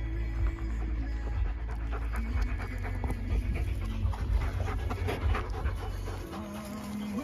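German shepherd panting hard close to the microphone, over a low rumble that stops near the end.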